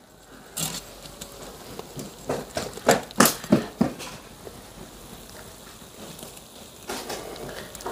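Scattered short clicks and taps as a smoked crucian carp is cut open and pulled apart. They come in a cluster over the first few seconds, then sparse quieter handling, with a few more taps near the end.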